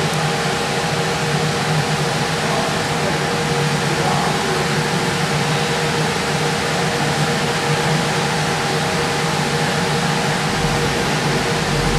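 Steady rushing air noise from a large cooling fan running at constant speed. A low rumble comes in near the end.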